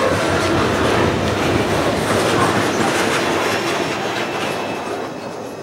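The last cars of a mixed freight train rolling past, steel wheels clattering over the rail joints and the cars rattling. The sound fades steadily over the last two seconds as the end of the train moves away.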